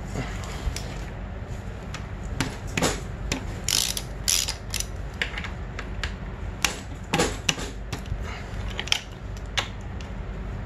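Hand socket ratchet clicking in irregular short bursts as the 12 mm mounting bolts of a dirt bike's front brake caliper are turned out.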